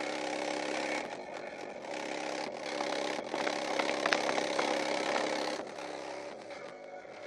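Kole Audio KMX SPL subwoofer playing bass-heavy music. It comes through as a buzzing stack of overtones in phrases of about a second, and the deepest bass is barely picked up.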